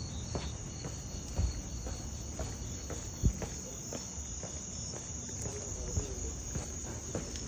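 Night insects, crickets among them, chirping in a steady high-pitched trill, with scattered footsteps on paving stones and one dull thump a little past three seconds in.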